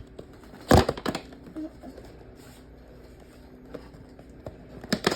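Cardboard action-figure box and its plastic tray being handled and pried open: a sharp crackle about a second in, then a quick cluster of clicks and crinkles near the end.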